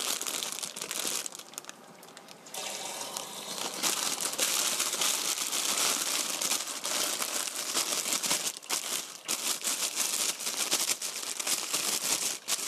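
A plastic bag of mushrooms crinkling as it is handled, over a kitchen tap running into a stainless steel sink. The running water comes on about two and a half seconds in.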